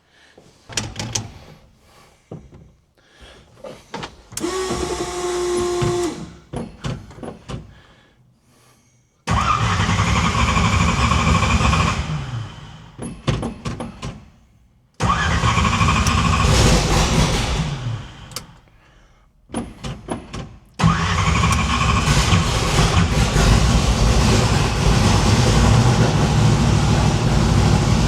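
Small-block Chevy V8 being started: it fires and runs about three seconds before dying, fires again and dies, then catches about 21 seconds in and keeps running. It doesn't sound right because only four of its eight spark plug wires are connected, so it is firing on half its cylinders.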